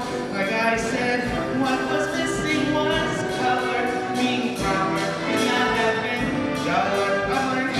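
A male solo singer performing a song with grand piano accompaniment.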